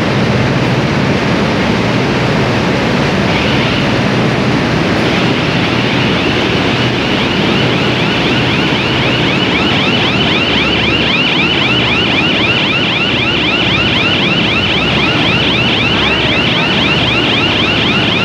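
Cotton ginning plant machinery running with a loud, steady din. From about halfway through, a fast, even, high-pitched rhythmic chatter rises over it.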